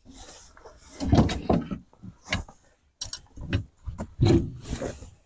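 Irregular knocks, clatter and rustling from tent poles and tent fabric being handled during a truck-tent setup.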